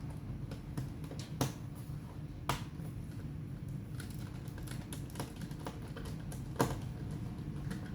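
Irregular light plastic clicks and taps from handling a laptop, three of them sharper and louder, over a steady low hum.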